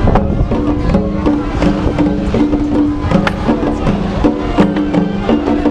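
Japanese festival parade music: small shoulder-slung drums beaten in a steady rhythm of sharp hits, over a melody of long held notes.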